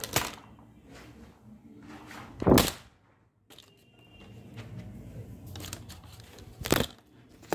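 Handling noise from a phone being picked up and moved while it records: a few knocks and rustles, the loudest about two and a half seconds in and another near the end.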